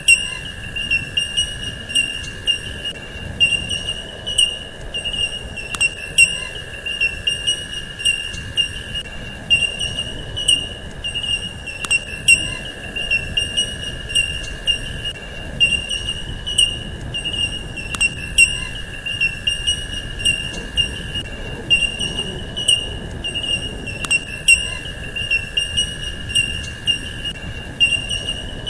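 A continuous high-pitched insect-like trill, wavering slightly, over a fainter steady lower tone, with scattered sharp clicks throughout.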